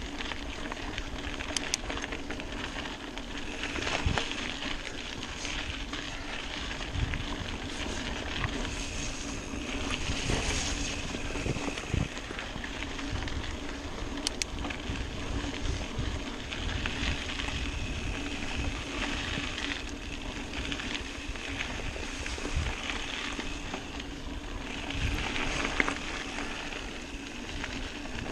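Mountain bike riding on a dirt singletrack trail: tyres rolling over the ground and the bike rattling, with a few sharp knocks over bumps and wind on the microphone.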